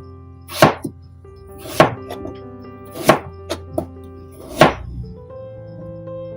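Knife chopping food on a cutting board: four heavy strokes a second or so apart, with a few lighter taps between them, over soft background music.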